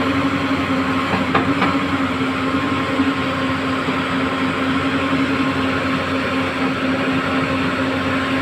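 Backhoe loader's diesel engine running steadily with a constant hum, with two light metallic clicks about a second and a half in.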